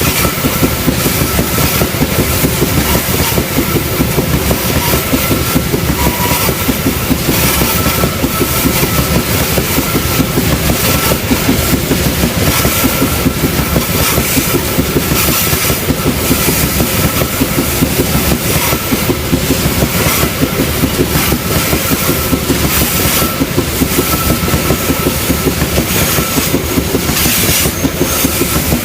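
Indonesian diesel-electric freight locomotive and its train running along the rails with a steady clickety-clack of wheels over the track, under a steady high whine.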